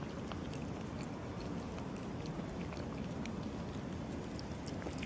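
A cat chewing food from a plastic tub close by, with scattered small clicks, over a steady low rumble.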